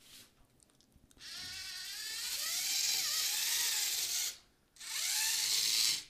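LEGO Mindstorms NXT servo motors driving a tracked robot: a geared electric motor whine that wavers up and down in pitch as the speed changes. It starts about a second in, runs for about three seconds, stops briefly, then runs again near the end.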